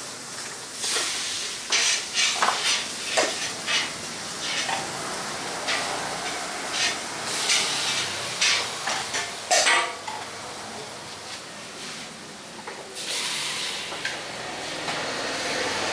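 Metal ladle and small hopper pan knocking and scraping against each other and a bowl of coconut-milk batter in irregular clinks, over a steady hiss. The knocks stop after about ten seconds, and a louder hiss swells about two-thirds of the way through.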